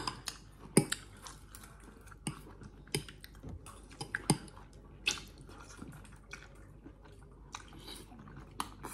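Two people eating noodles: wet chewing and slurping of noodle strands. Scattered sharp clicks of metal forks against ceramic plates cut through it every second or so.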